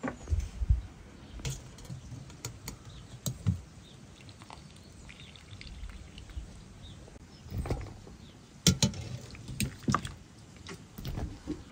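Boiled potato chunks lifted dripping out of their cooking water with a wire skimmer and tipped into a large aluminium bowl: water splashing and dripping, with scattered knocks of potato and skimmer against the metal, most of them in the second half.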